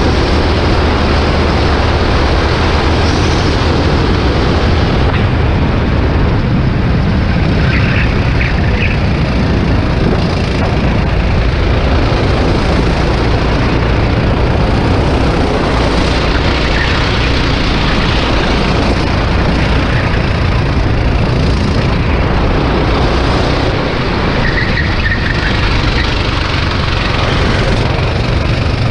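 Racing kart engine running hard at speed, heard from a camera mounted on the kart, loud and steady throughout.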